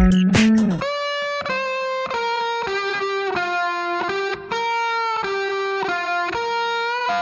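Background music: the drums and bass drop out about a second in, leaving a solo electric guitar playing a melody of held single notes.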